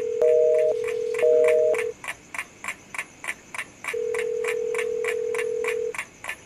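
Telephone sound effects: a busy-signal beep pulsing on and off ends about two seconds in, over a steady phone tone that sounds twice for about two seconds each. Under them, a clock ticks evenly at roughly four ticks a second.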